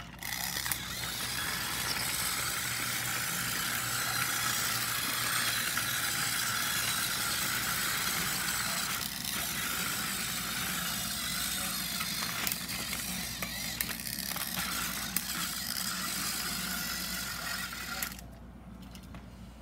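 Battery-powered TOMY James toy engine's motor and gears whirring steadily, with a few clicks. It starts suddenly just after the start and cuts off suddenly about eighteen seconds in, when the engine is switched off.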